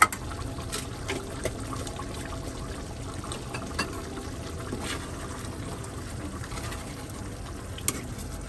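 Thick chicken caldereta sauce simmering in a pan on a gas burner: a steady low bubbling with scattered small pops. A sharp click comes right at the start and another near the end, as a spoon goes into the pan to stir.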